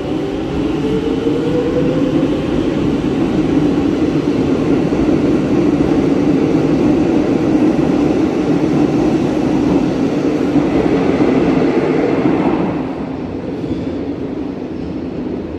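Madrid Metro Line 6 electric train pulling out of an underground station: the traction motor whine rises in pitch over the first few seconds, under a steady rumble of wheels on rails. The rumble drops away about thirteen seconds in as the train leaves.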